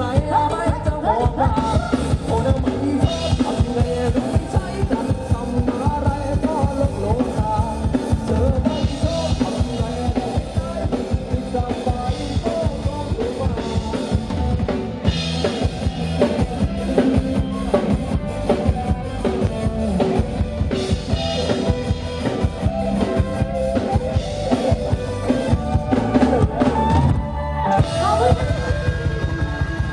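Live band music played through a sound truck's loudspeaker stack: a fast, steady drum beat with bass guitar, electric guitar and keyboard under singing.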